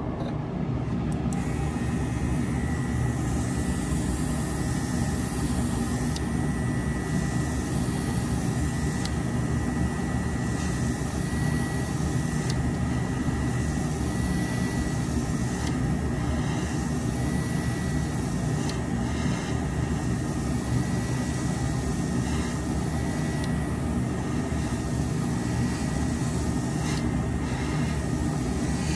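Steady whir of an electric shop machine motor running at constant speed, with a thin high whine held throughout and a few faint clicks.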